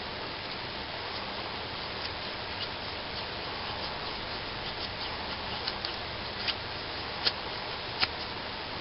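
Knife blade shaving feather curls off a stick of wood, a run of small ticks and scrapes over a steady hiss, with four sharper ticks near the end a little under a second apart.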